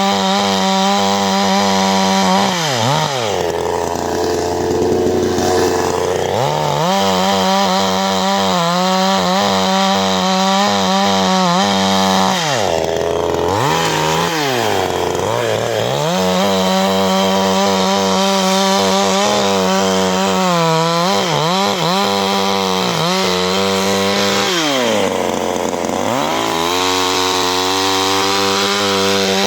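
CanFly 54.6 cc two-stroke chainsaw running at high revs, its engine speed dropping sharply and climbing back again three times.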